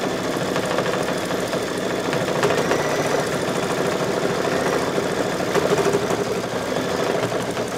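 Brother Luminaire single-needle embroidery machine stitching out a design, its needle bar running in a fast, steady rhythm.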